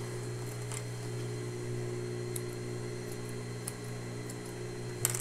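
Industrial sewing machine's electric motor humming steadily while the needle is not stitching, with a few light clicks from the fabric being handled and a sharper click about five seconds in.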